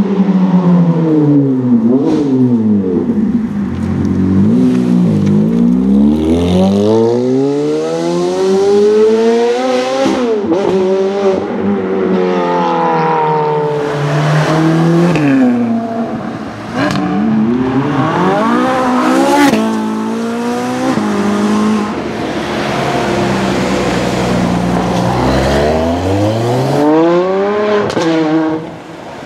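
Ferrari supercar engines revving hard and accelerating, one car after another. Each engine note climbs steeply through a gear and drops at the shift, with a few sharp cracks.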